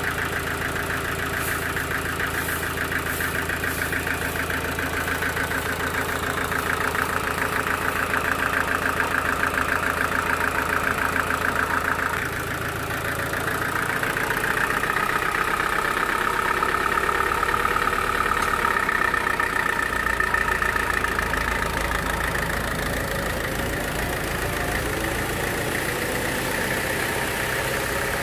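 Sawmill machinery running steadily, an engine hum under a saw's whine; about twelve seconds in the sound shifts as the load changes, and the whine rises a little and then holds.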